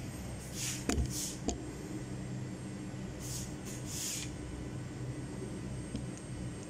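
Steady low hum of the room, with two sharp knocks about a second in and a few short hissing rustles.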